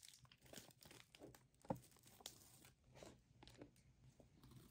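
Faint crinkling and tearing of a thin plastic snack wrapper as it is opened, with a few short sharp crackles, the sharpest a little under two seconds in.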